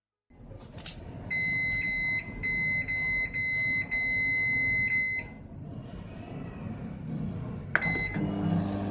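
Microwave oven beeping: a run of high electronic beeps about two a second for roughly four seconds, then one more short beep near the end, over a low running hum.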